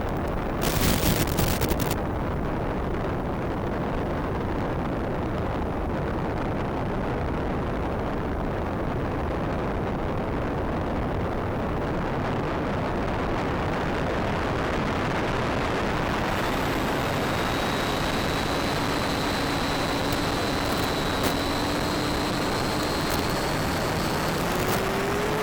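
Steady wind rush from a Bixler RC plane in flight, with a brief louder gust about a second in. From about two-thirds of the way through, the thin whine of its electric motor comes in and rises slightly in pitch near the end.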